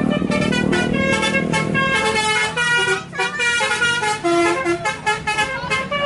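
Bus 'telolet basuri' multi-tone air horn playing a fast tune of short notes that jump in pitch, one after another.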